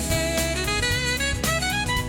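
Background instrumental music: a melody line moving note to note over a bass line and drums.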